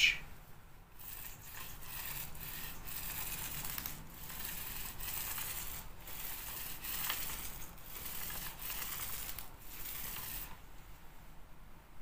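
Mini paint roller rolled back and forth across a wall, laying on thinned paint to feather out a touch-up: a rasping hiss in repeated strokes that stops a little before the end.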